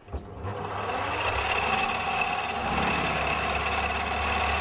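Mini lathe switched on with a click, its motor and four-jaw chuck spinning up over about a second, then running steadily with a high whine.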